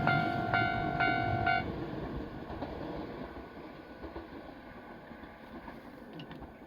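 Japanese level crossing warning bell ringing about twice a second, stopping about a second and a half in, the sign that the train has cleared the crossing. Under it the rumble of the passing Nankai Main Line local train fades away.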